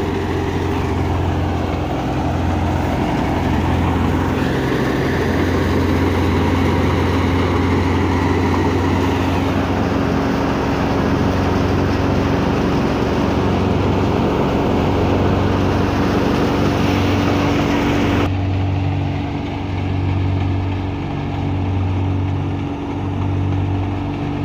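Tractor-driven wheat thresher running at speed, powered by a Fiat 480's three-cylinder diesel: a steady mechanical hum with a constant tone over a loud noisy rush. About three quarters of the way through, the sound changes abruptly to a low pulsing about once a second.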